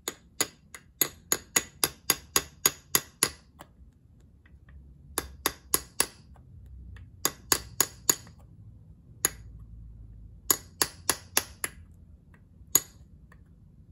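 Light hammer taps on a pin punch, gently driving a replacement A1 rear sight's windage assembly into the carry handle of a gas-blowback airsoft M16. Sharp metallic clicks with a brief ring, in runs of several taps about three to four a second, separated by short pauses.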